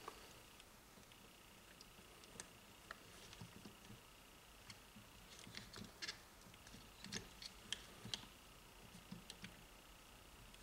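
Faint, scattered small clicks and taps of hands handling starter parts while a rubber boot is worked into place at the brush end of the starter motor, over quiet room hiss.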